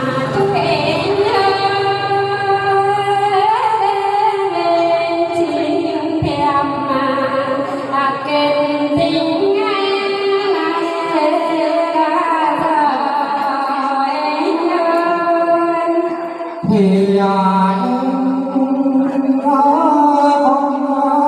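Hát Mường, traditional Mường folk singing: a woman sings a long, gliding, ornamented line into a microphone. About three-quarters of the way through, a man's lower voice takes over the song.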